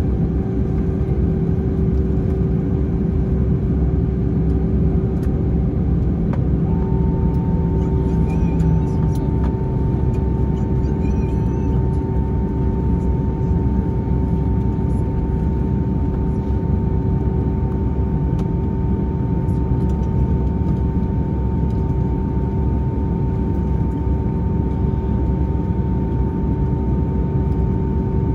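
Airbus A321ceo cabin noise while the jet sits stopped with its engines idling: a steady rumble with a constant hum, and a second, higher steady tone that joins about a quarter of the way in.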